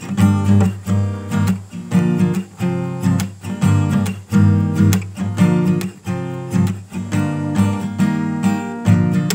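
Background music of strummed acoustic guitar, chords struck in a steady rhythm.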